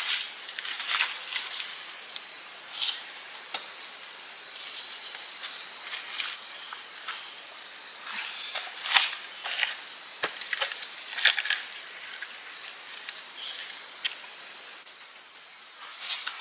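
A steady high insect trill, like crickets, with irregular crackles and snaps over it, the loudest about 9 and 11 seconds in.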